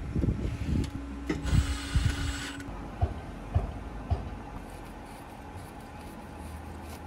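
Sheet-metal electrical disconnect enclosure being handled and fitted, giving a string of metal knocks and clicks. A short mechanical whirr runs from about one and a half to two and a half seconds in. Then a conduit fitting is hand-tightened in the box's knockout with three sharp clicks, about three to four seconds in.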